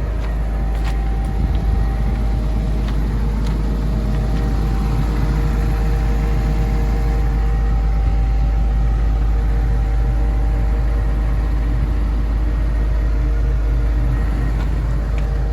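Komatsu PC200LC-8 excavator's six-cylinder diesel engine idling steadily with a constant low rumble, with a few light knocks in the first couple of seconds.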